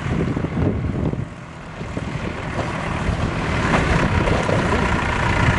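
JCB backhoe loader's diesel engine running, with wind buffeting the microphone; the sound dips briefly and then grows louder about halfway through.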